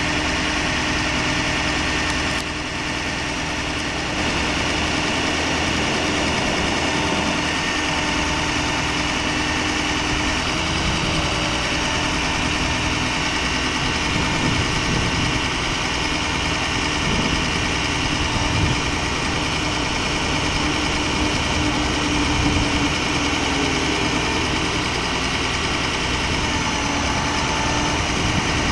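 A Ford 6.0-litre Power Stroke V8 diesel idling steadily, with a steady hum over it. The level dips briefly about two seconds in.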